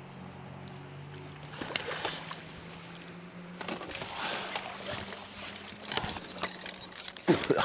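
Water splashing and sloshing in irregular bursts over a steady low hum, with the loudest splash near the end.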